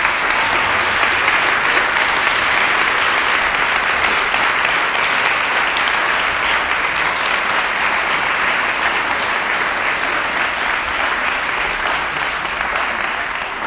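Audience applauding: many people clapping at once in a dense, steady clatter.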